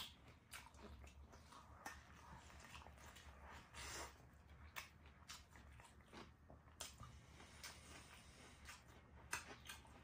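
Faint sounds of eating: chewing, with scattered light clicks of chopsticks against a steel bowl of rice.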